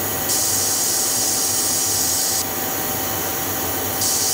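Laser decapping machine running as its laser burns away the plastic package of an integrated circuit: a steady machine hiss whose high part cuts out about two and a half seconds in and comes back near the end.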